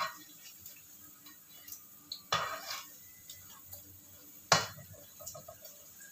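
A metal spatula clinking and scraping against a frying pan as food frying in it is stirred and turned: a clink at the start, a short scrape about two and a half seconds in, and a sharp knock about four and a half seconds in.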